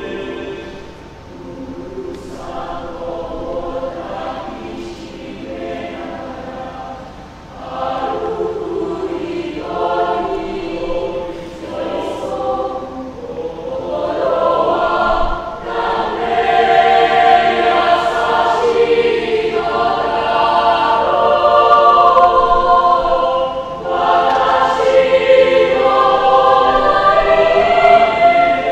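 Mixed youth choir singing a cappella in parts, starting softly and swelling louder about a quarter of the way through and again past the middle.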